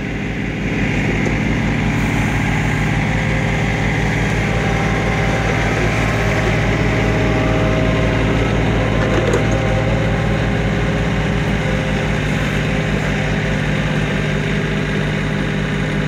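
John Deere 2520 compact tractor's diesel engine running steadily while it powers the Mazzotti backhoe's hydraulics digging a trench.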